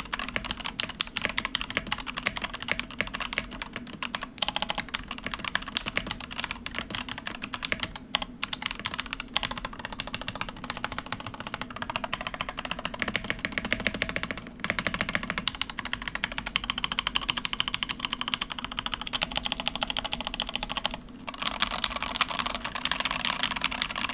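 Fast, continuous typing on an XVX Coral Sea M84 mechanical keyboard with stock Gateron Red linear switches: a dense patter of keystrokes, broken by three short pauses.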